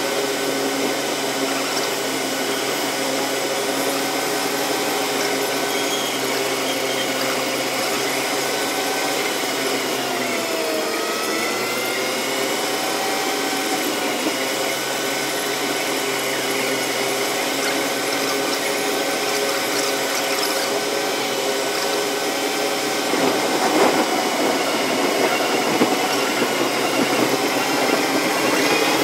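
A car's engine and road noise heard from inside the cabin through a windscreen-mounted dashcam: a steady engine drone whose pitch dips and comes back up about ten seconds in. From about two-thirds of the way through, a rougher, slightly louder rumble of the tyres on the road surface joins it.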